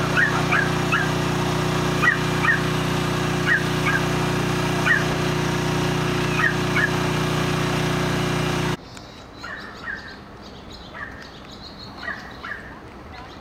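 Birds chirping, short high calls repeated every second or so, over a steady mechanical hum. The hum cuts off suddenly about nine seconds in, leaving the chirps fainter.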